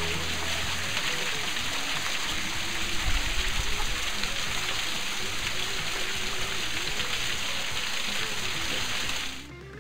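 Water falling from the rim of a small concrete dam and splattering onto the rocks below: a steady, dense rushing hiss, with music faintly underneath. The water sound cuts off suddenly shortly before the end.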